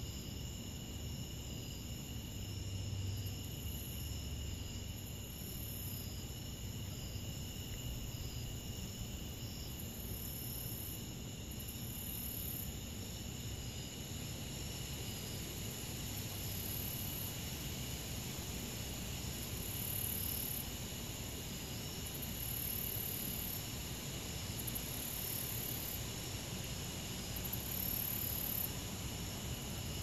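A chorus of insects calling: a steady high-pitched trill, with a still higher note that comes and goes every second or two, over a faint low rumble.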